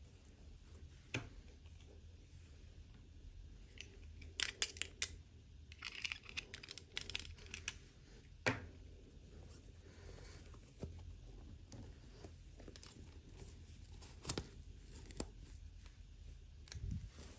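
Toy packaging being opened and handled: scattered sharp clicks and taps, with a stretch of crinkling and tearing about six to eight seconds in.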